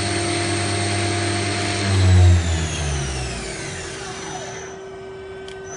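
Daewoo Puma 150G CNC lathe spindle running steadily at 6000 RPM, which the seller calls very healthy. About two seconds in it swells briefly, then winds down, its whine falling in pitch until it stops. A steady lower machine hum remains.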